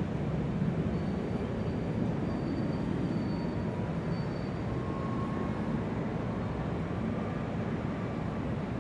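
Large airport ambience: a steady low rumble with a faint high whine that comes in about a second in and fades after about four seconds.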